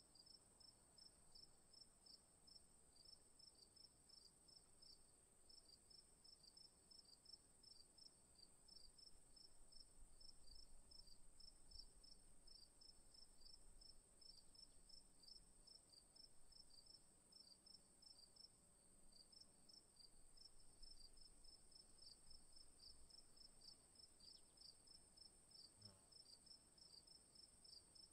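Faint chorus of night insects at dusk: quick high chirps repeating in short trains, over a steady, even higher trill.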